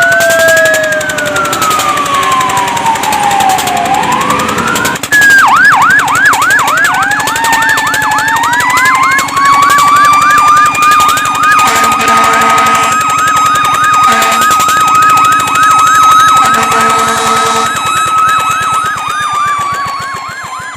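Fire truck sirens sounding together: slow rising and falling wails in the first few seconds, then a fast yelp about three or four times a second over a steady held tone that winds up and later winds down. A horn sounds twice, around the middle and near the end, and the sirens fade out at the close.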